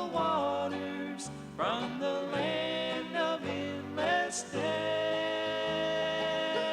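Country gospel music in a bluegrass style playing back from an old cassette tape, with plucked strings and a long held note in the last couple of seconds; the sound is dull, lacking its top end.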